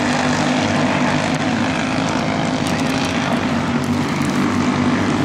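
Racing kart engine running at speed around the track, a steady buzzing drone that holds its level throughout.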